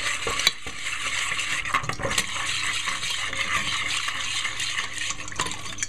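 Milk, cream and stock poured in a thin stream into a hot butter-and-flour roux in a stainless steel pot while a whisk stirs it, to keep the béchamel free of lumps. A steady splashing hiss, with a few clicks of the whisk against the pot.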